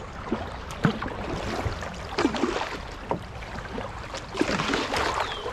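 Paddle strokes and water splashing as a small paddled boat moves up a brook, with a few short knocks scattered through and a louder patch of splashing near the end.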